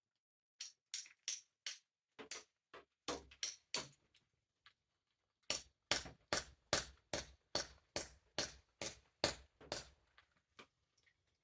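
A hammer striking the steel of an ice auger's drill bit in repeated sharp metallic blows, knocking off a stuck piece that has already been cut through. A few strikes come first, then a steady run of about a dozen, roughly two to three a second.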